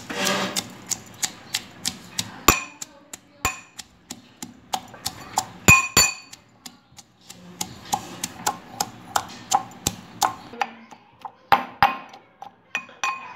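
Metal pestle pounding green chillies and garlic in a metal mortar: a run of sharp metallic knocks, about three a second, each with a short ring, with a brief pause about halfway through.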